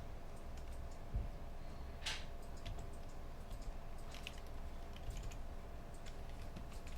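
Sparse computer keyboard keystrokes and clicks in an internet cafe booth, irregular rather than continuous typing, with one louder click about two seconds in, over a steady low hum.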